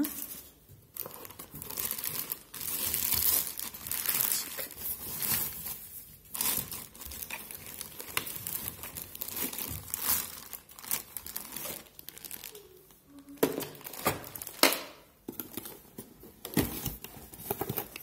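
Clear plastic wrap crinkling and rustling as it is handled and pulled off a robot vacuum, in irregular stretches with short pauses between them.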